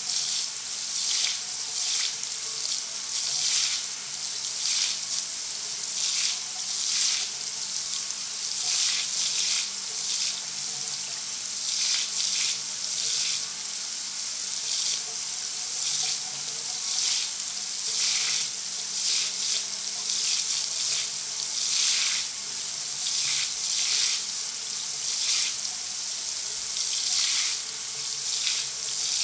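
Shower spray running steadily: a continuous hiss of falling water that swells and ebbs irregularly every second or so.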